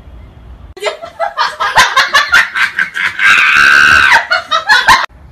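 Loud, high-pitched laughter in rapid bursts, starting about a second in, with a long held shriek in the middle and a sudden cut-off near the end.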